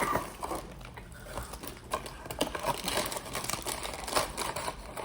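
Irregular crinkling and crackling of plastic snack packaging being handled.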